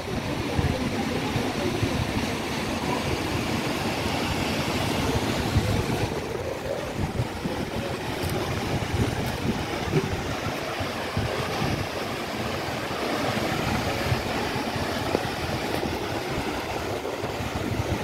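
Steady outdoor rushing noise with an uneven, gusty low rumble: wind buffeting the microphone over open-air street ambience.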